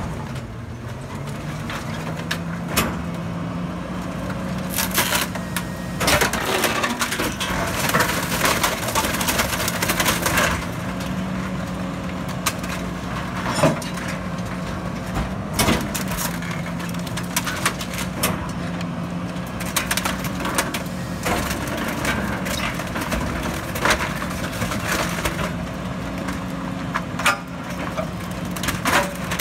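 Rear-loader garbage truck's hydraulic packer crushing wooden furniture and debris in its hopper: wood cracks and splinters with sharp snaps, densest about five to ten seconds in, over the steady drone of the truck's engine, which steps slightly up and down in pitch as the hydraulics cycle.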